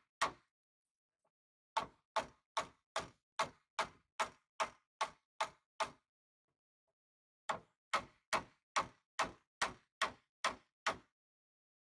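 Hammer knocking on a wooden block held against the seized sliding door of a 1977 VW Type 2 bus: steady, evenly spaced knocks about two and a half a second, in runs broken by two short pauses. The tapping is meant to work free the door, which is stuck after years of sitting.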